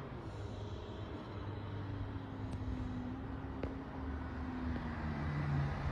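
Volkswagen Passat CC's engine running during an acceleration run: a steady engine note over a low road rumble, its pitch dropping lower near the end.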